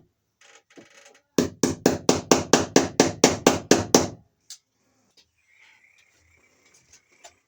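Hammer tapping a cable staple in to hold the electrical cable, a quick even run of about a dozen light blows, four or five a second, lasting about three seconds.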